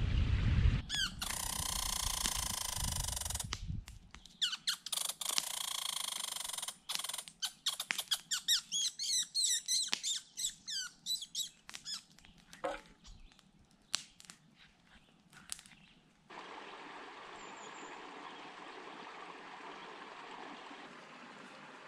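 Several separate bursts of high chirps and squeaky calls from small birds or animals, broken by abrupt cuts, then a steady soft rushing noise from about sixteen seconds in.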